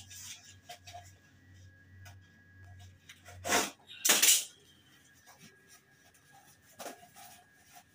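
A few short knocks and clinks of hard objects being handled, the loudest two about three and a half and four seconds in, with a faint steady high whine underneath.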